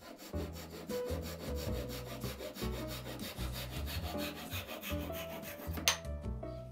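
Japanese pull saw cutting through a small strip of American black walnut in quick, rasping strokes, with a sharp knock near the end as the offcut comes free. Background music plays underneath.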